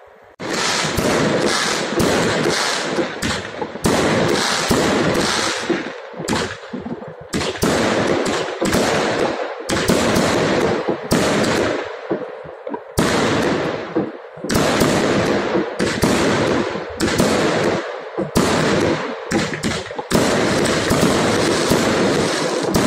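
Fireworks going off in a dense barrage: rapid bangs one after another with crackling between them, starting about half a second in.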